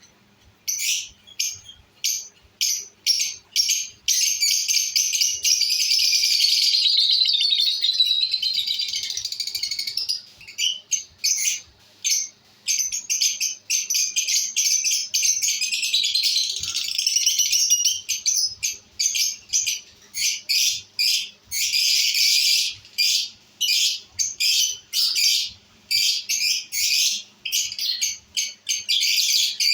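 Lovebirds chirping in rapid, high-pitched bursts, running together into continuous shrill chatter for several seconds about four seconds in and again briefly near the twenty-two-second mark.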